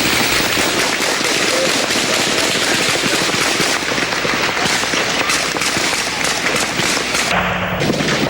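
Dense, continuous gunfire: many rapid shots crackling and overlapping without pause, with a brief lull in the sharp cracks near the end.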